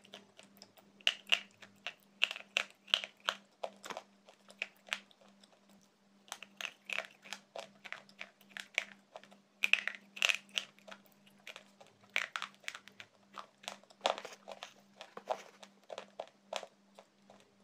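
Slate pencil being bitten and chewed close to a microphone: runs of short, sharp soft crunches with a pause of about two seconds in the middle, over a faint steady low hum.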